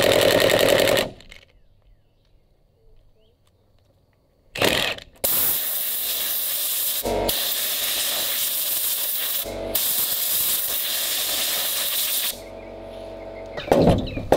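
A cordless impact driver hammering on the engine's crankcase-cover bolts for about a second, then stopping. After a pause comes a long, steady hiss, broken twice, and a mallet starts knocking on the cast crankcase cover near the end.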